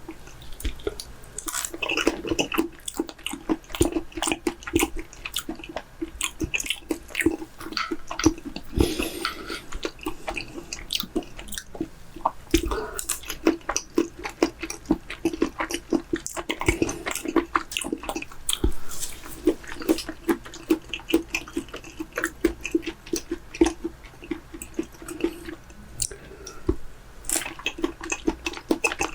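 Close-miked chewing of raw chicken breast slices: wet, squishy mouth sounds with many irregular sharp clicks and smacks.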